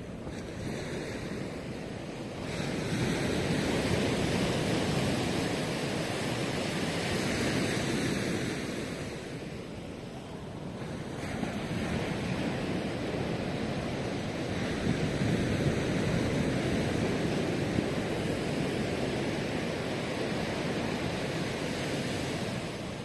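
Ocean surf washing onto a beach: a steady rush of breaking waves that swells, eases briefly about ten seconds in, and builds again, with some wind on the microphone.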